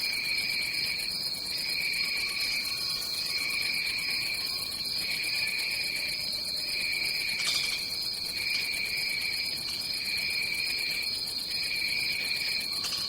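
Tropical rainforest ambience made up of insects: a steady high-pitched drone, with a second, lower insect call pulsing on and off about once a second.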